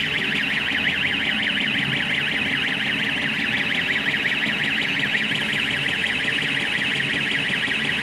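Rubber-tyred gantry crane's travel warning alarm sounding continuously while the crane drives forward: an even, rapidly warbling electronic tone.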